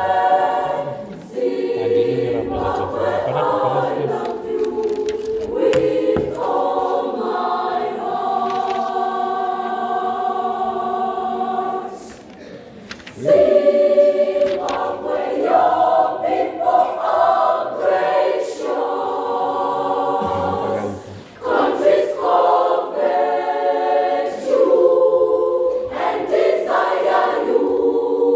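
Primary-school children's choir singing in parts, with long held chords. About twelve seconds in the singing breaks off briefly and then comes back in louder. It cuts off again for a moment a little after twenty seconds.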